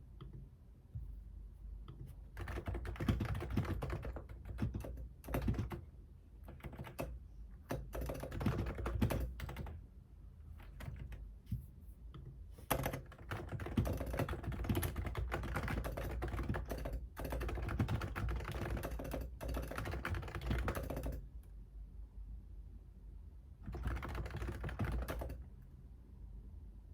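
Computer keyboard typing in fast runs of keystrokes, broken by short pauses and a longer lull near the end before a final short burst.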